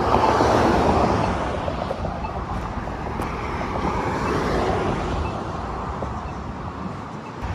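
Road traffic noise at a busy intersection: a steady rush of passing vehicles, loudest in the first second or so as a vehicle goes by.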